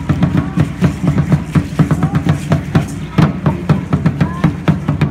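Large upright Aztec huehuetl drum beaten in a steady, fast, even rhythm.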